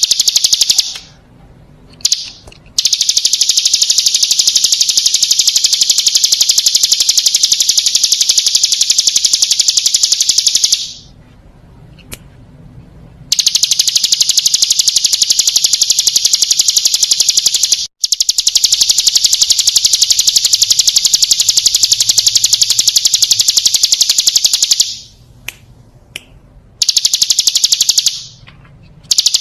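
Ciblek gunung (hill prinia) singing its 'ngebren' song: long, very rapid, even trills lasting up to about ten seconds, broken by short pauses.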